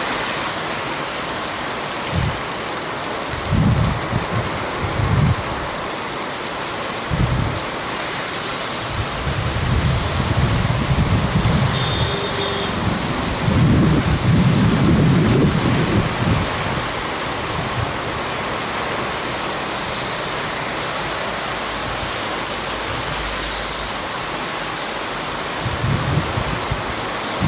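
Rain falling steadily, an even hiss, with low rumbles swelling and fading every few seconds.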